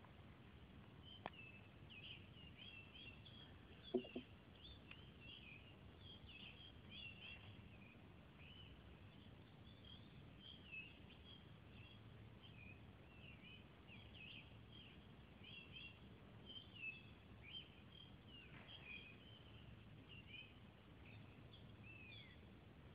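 Birds chirping steadily, many short high calls over faint background hiss, with a brief knock about four seconds in.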